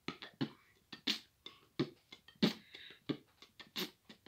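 Quiet beatboxing: a loose rhythm of short mouth clicks, pops and hissing puffs, a few each second, keeping time between verses of a sung song.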